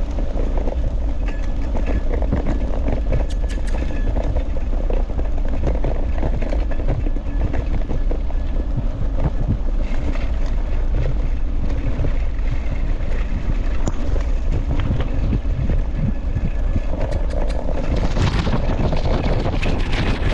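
Wind buffeting the microphone over the rattle and rumble of a dog scooter rolling fast over a bumpy grass and dirt trail. A steady loud noise carries many small clicks and knocks from the frame and wheels.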